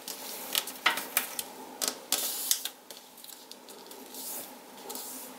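Folded paper crackling and rustling as fingers press and run along a crease in a paper airplane's thick, many-layered fold. A dense run of sharp crackles and scrapes in the first three seconds, then softer rustling.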